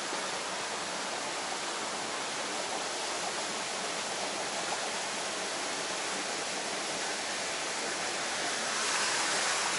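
Steady rushing of a small rocky stream's flowing water, an even hiss that grows slightly louder near the end.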